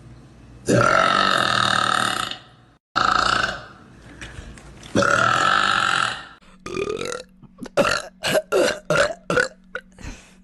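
Girls belching loudly: three long, drawn-out burps, then a quick run of about eight short burps near the end.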